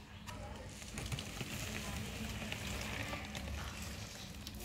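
Steady crackling rustle of a plush toy's fur and artificial turf rubbing as a baby monkey wriggles under the toy, louder from about a second in.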